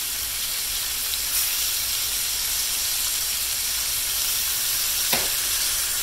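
Flour-dredged steaks browning in hot corn oil in a braiser pan: a steady sizzle, with one short click about five seconds in.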